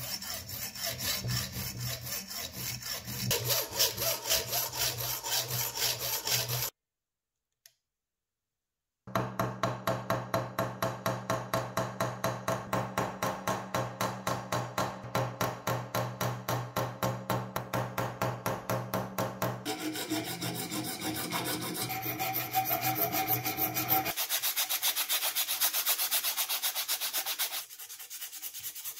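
Fine-toothed hacksaw rasping back and forth in quick, even strokes, cutting off the protruding metal pins that hold a new beech-wood screwdriver handle. Later comes a stretch of hammer strikes peening the pins over, then hand rubbing on the wooden handle near the end.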